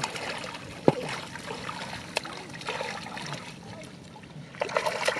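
Splashing and sloshing in shallow muddy water, with a couple of sharp knocks about one and two seconds in and louder splashing near the end.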